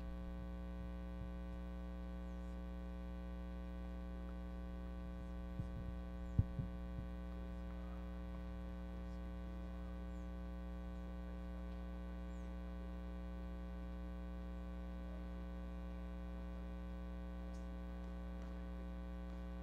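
Steady electrical hum with many evenly spaced overtones, with a single short knock about six seconds in.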